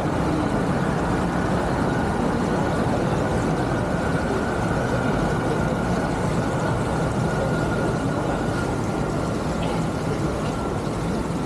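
Passenger motor ship under way: a steady engine drone mixed with rushing water and wind noise, with a faint high steady whine on top.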